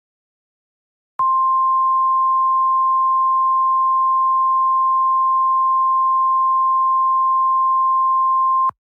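Emergency alert warning tone, the NOAA Weather Radio style 1050 Hz alarm: one steady pure tone starting about a second in and held for about seven and a half seconds before it cuts off. It signals an incoming warning bulletin.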